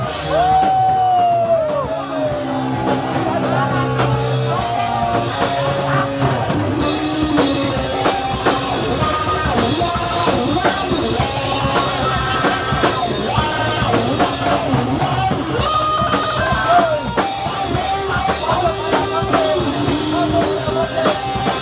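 Hardcore punk band playing live: drum kit and electric guitars at full volume, the top end getting brighter from about seven seconds in until about fifteen.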